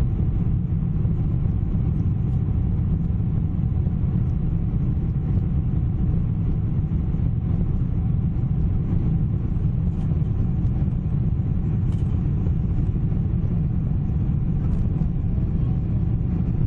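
Steady low rumble of engine and airflow noise inside the cabin of a four-engined Boeing 747-400 climbing out after takeoff.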